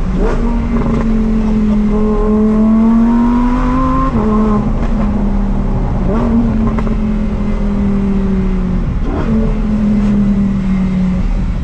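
Lamborghini Huracán STO's naturally aspirated V10 under way at moderate revs. Its pitch climbs for a couple of seconds, drops suddenly about four seconds in as with an upshift, then holds and sags slowly, over steady road and wind noise.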